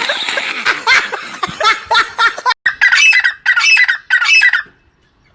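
A bird squawking in a string of short harsh calls. There is an abrupt cut about two and a half seconds in, then more squawks in quick bursts that stop near the end.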